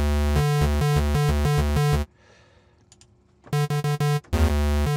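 Spectrasonics Omnisphere playing a basic square-wave sound from its Moog modular sample, dry and unprocessed. It plays a rhythmic run of low, buzzy notes that change pitch, stops about two seconds in, then starts again about a second and a half later.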